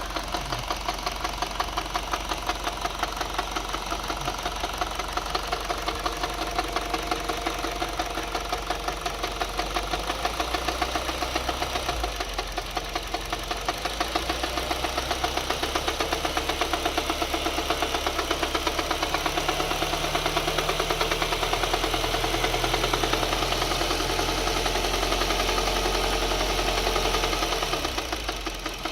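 2011 Mini Cooper's four-cylinder engine running with a steady, rapid, rhythmic knock, which the owner suspects is rod knock.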